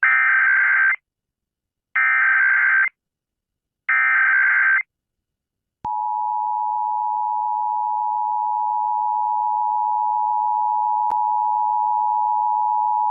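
Emergency Alert System tones: three one-second bursts of SAME header data, each a harsh buzzy warble, about a second apart. About six seconds in, the steady two-tone EAS attention signal (853 and 960 Hz) begins and holds. Together they open the National Periodic Test of the EAS.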